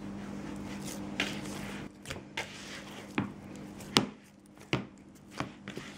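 Hands kneading a ball of bread dough in a plastic bowl: a series of separate dull thumps and slaps, roughly one or two a second, as the dough is pressed and turned.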